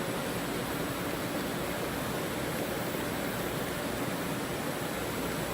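Steady, even rushing noise of a cabinet factory floor, with no distinct events.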